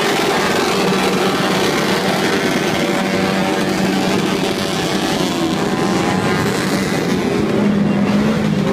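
Many small motorcycles and scooters running together as a convoy rides past, a loud, steady blend of engines whose pitches rise and fall as riders throttle up and ease off.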